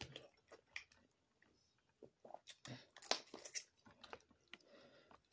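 Faint sounds of eating boiled crawfish: shells cracked and peeled by hand, and chewing, heard as scattered short clicks and crunches that are a little louder about three seconds in.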